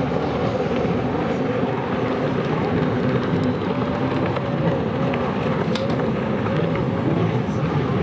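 Racing jet skis running hard, their engine whine wavering up and down in pitch as they turn around the buoys.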